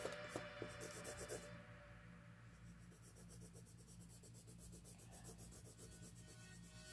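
Faint scratching of a coloured pencil shading on paper.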